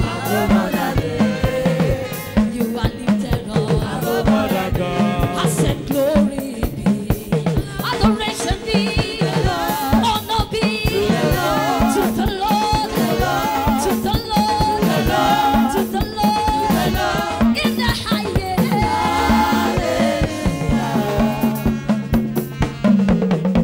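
Gospel music in a church service: singing over a drum kit keeping a steady, busy beat.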